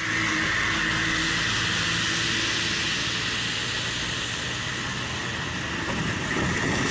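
Traffic driving through a flooded road: a steady hiss of water spray over low vehicle engine hum. Near the end a louder rumble and splash comes in as a car ploughs through the water close by.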